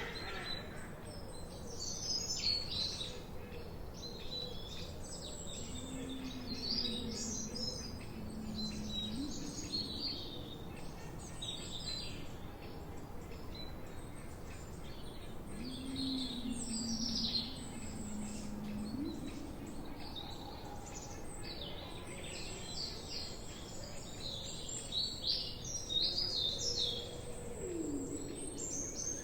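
Chorus of forest songbirds chirping and trilling in high, overlapping phrases, over a faint steady background hiss. A lower, longer call sounds twice, about six and sixteen seconds in, and another lower call slides down near the end.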